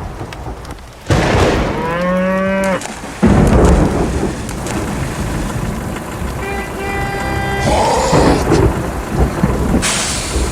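Thunder rumbling over steady rain, with a cow mooing once about two seconds in. A steady pitched tone is heard briefly past the middle.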